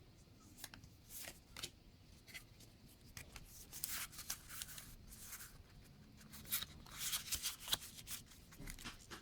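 Faint, intermittent rustling and light clicks of a foil booster-pack wrapper and Pokémon trading cards being handled, in two busier bursts about a third of the way in and again near the end.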